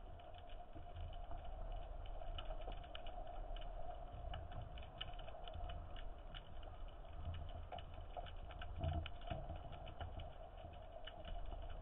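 Underwater ambient sound picked up through a camera housing: an irregular crackle of small sharp clicks, several a second, over a low rumble, with a louder dull bump about nine seconds in.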